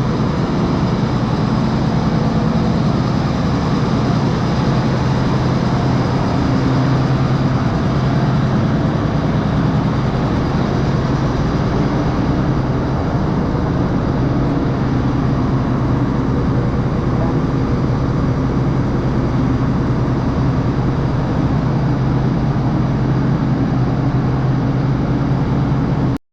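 Large farm diesel engine running steadily, a deep, even drone that holds the same pitch throughout.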